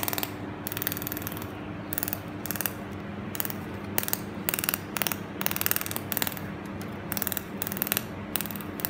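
A 300 W DAHAN laser welding machine firing in short, rapid buzzing bursts at the weld, about two a second at irregular spacing, over a steady low hum from the machine.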